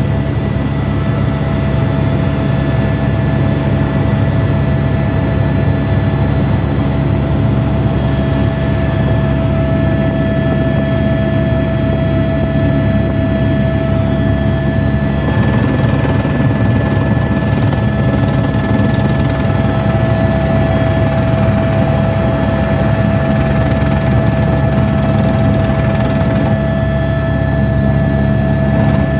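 Helicopter in flight, heard from inside the cabin: a loud, steady drone of rotor and engine with a constant whine on top.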